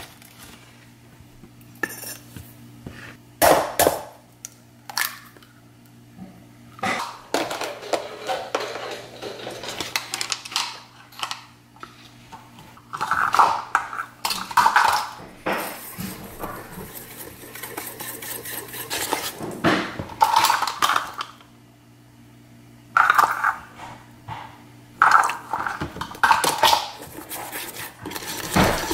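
Utensils and containers clinking and knocking against a stainless steel mixing bowl as protein pancake batter ingredients go in, in scattered sharp knocks with short gaps. A wire whisk starts beating in the bowl near the end.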